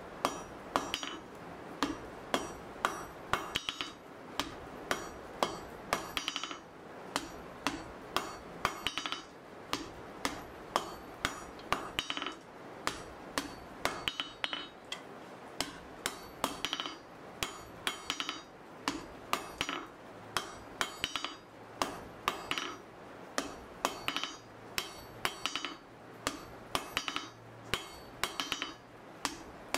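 Blacksmith's hand hammer striking a red-hot 1/4 by 1 inch mild steel bar on an anvil, forging a hinge strap. The blows come at roughly two a second with a few short pauses, and each one rings briefly.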